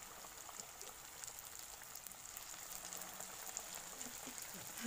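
Turon, saba banana spring rolls, deep-frying in hot oil in a metal wok: a faint, steady sizzle with scattered small crackles.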